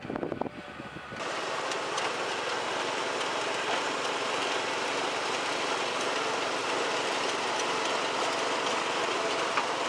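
A few light clicks and rattles, then, starting abruptly about a second in, the steady clatter of a potato harvester running, its conveyor and sorting table carrying potatoes.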